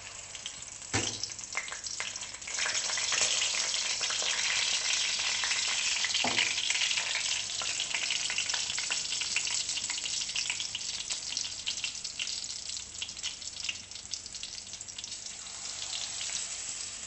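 Besan-coated potato patties (aloo tikki) sizzling and crackling as they shallow-fry in hot ghee in a wok. The sizzle grows louder about two seconds in, and two short knocks come about one and six seconds in.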